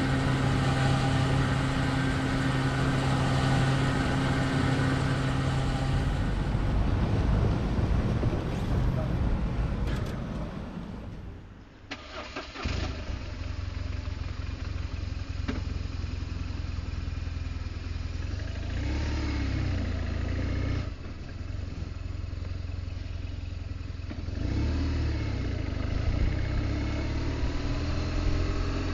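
Petrol pump running with a steady hum while fuel goes into the tank. After a break about halfway through, the BMW R1200GS Adventure's boxer twin starts suddenly and idles, with a few brief rises in engine speed.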